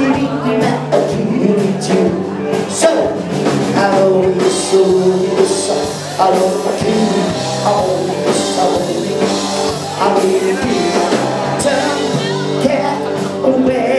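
Live rock and roll band playing: a male singer over electric guitar, bass notes and a steady drum beat.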